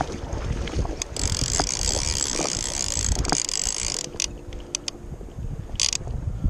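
Hardy Perfect fly reel's click-and-pawl check buzzing steadily for about three seconds as line runs through it, then a short burst of clicks near the end, over wind rumble on the microphone.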